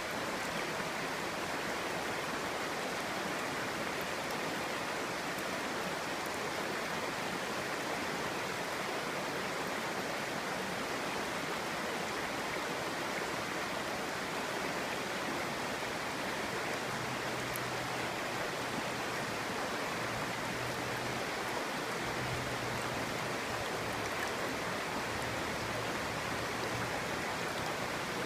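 Clear stream babbling steadily over its bed, an even rush of running water.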